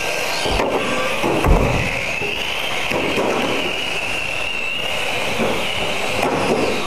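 Electric radio-controlled mini cars racing, their motors whining with a pitch that rises and falls as they speed up and slow down. Two sharp knocks cut in about half a second and a second and a half in, the second the loudest sound.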